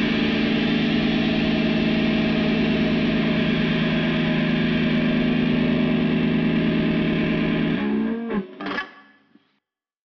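Final chord on a distorted electric guitar through a Marshall amp, held and ringing steadily. About eight seconds in the notes slide and wobble in pitch, then the sound dies away to nothing.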